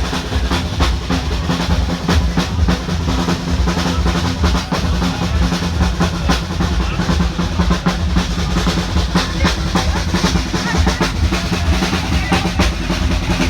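Loud music with a heavy bass line and busy, fast drumming.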